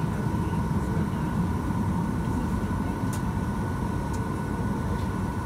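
Steady cabin noise inside a Boeing 737-900ER as it moves slowly on the ramp: a low rumble with a steady high whine, and a couple of faint ticks near the middle.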